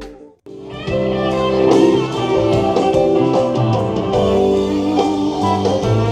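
Guitar-led music with plucked notes. It cuts out briefly about half a second in, then starts again.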